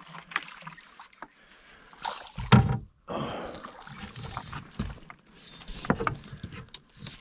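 Irregular knocks and clatter of a fishing rod and gear being handled against an aluminum boat's gunwale and deck, with one heavy thump about two and a half seconds in.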